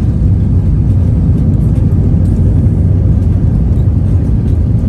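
Airliner cabin noise during the approach and landing: a steady, loud low rumble of the engines and rushing air, heard from inside the cabin.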